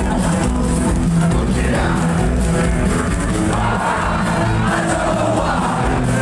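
Psychobilly band playing live, loud and steady with a heavy bass, and the crowd shouting and singing along over it.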